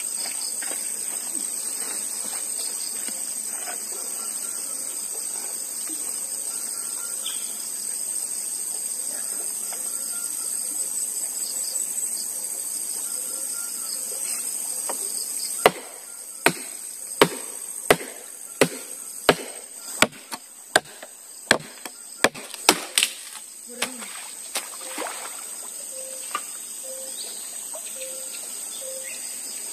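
Forest insects drone steadily in a high buzz. About halfway through comes a run of about a dozen sharp chopping strikes, roughly one every two-thirds of a second, then a few scattered ones: firewood being chopped.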